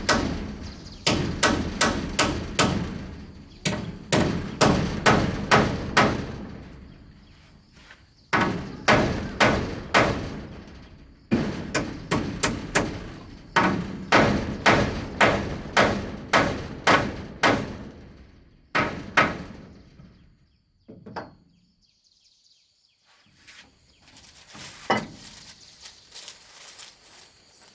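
A hand tool strikes wood over and over in runs of about two to three heavy blows a second, with short pauses between the runs. The last few seconds hold only a couple of scattered knocks.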